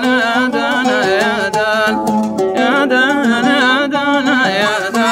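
Hadhrami dan music: an oud plucking under a wavering, ornamented melody line from the mizmar reed pipe.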